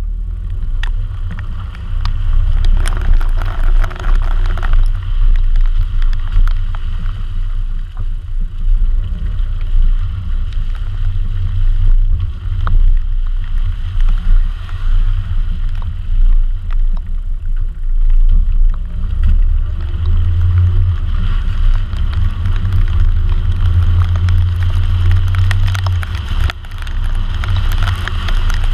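Wind buffeting the microphone of a camera mounted on the outside of a moving car, over the hiss of tyres throwing spray off wet pavement, with scattered ticks of raindrops hitting the camera.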